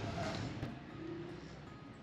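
Faint background music with a few soft held notes over a low noise bed.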